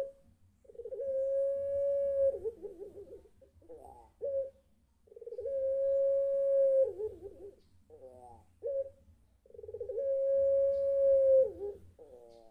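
Young ringneck dove (puter pelung) cooing its drawn-out call three times, each a quick warbling start, a long held note of about a second and a half, then a falling break, with short sobbing notes in between: calling for its mate.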